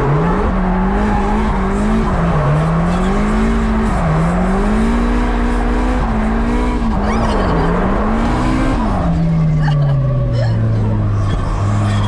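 Drift car's engine, heard from inside the cabin, revving up and down again and again as the car is driven sideways through the corners, with tyre squeal. About nine seconds in the revs fall away and hold low and steady.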